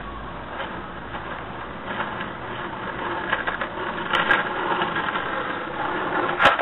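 Waveboard caster wheels rolling and carving on asphalt, the rolling noise growing louder as the board comes closer, with a sharp click near the end.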